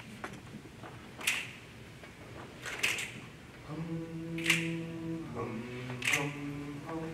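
Finger snaps keeping a slow beat, about one every second and a half. A bit past halfway, an a cappella group joins with voices holding a low sustained chord that shifts briefly and then settles.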